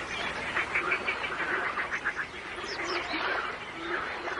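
Birds calling at a reedy lake: a run of rapid chattering notes, then a few high, thin chirps about three seconds in, over a steady wash of small waves.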